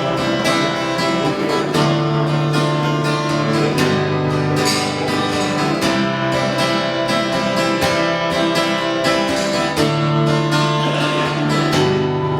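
Acoustic guitar strummed in a steady rhythm, playing the instrumental intro of a folk song over held low bass notes that change every few seconds.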